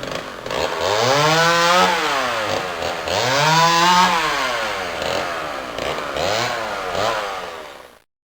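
Two-stroke chainsaw revving up and back down several times, its pitch rising and falling with each rev, then cutting off abruptly near the end.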